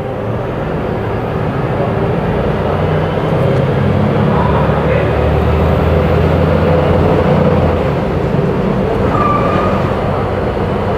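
Volvo B290R city bus engine running under load through its Voith automatic gearbox. It gets louder over the first several seconds, then eases off slightly about eight seconds in.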